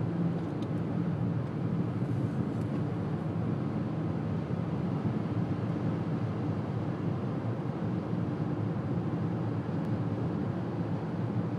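Steady road noise inside a car's cabin cruising at highway speed: tyre and engine noise as an even low drone with a faint steady hum.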